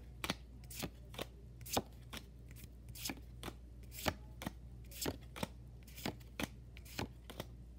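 Pokémon trading cards being flipped one at a time from the back to the front of a freshly opened pack's stack, each card making a short sharp snap, two or three a second.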